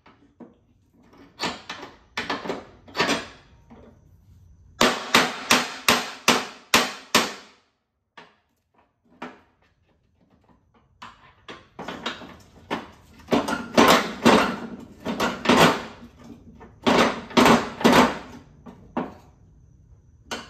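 Repeated hammer blows on a part of a John Deere 318 mower deck, in runs of quick strikes about three a second, each ringing briefly, with a pause of a few seconds in the middle.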